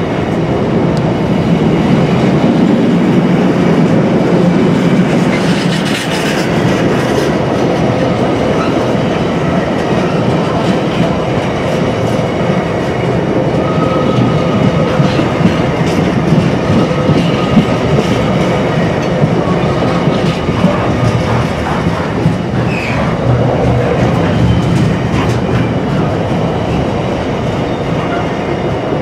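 Container wagons of a long intermodal freight train rolling past at speed: a steady loud rumble of wheels on rail with rhythmic clatter as the bogies cross rail joints.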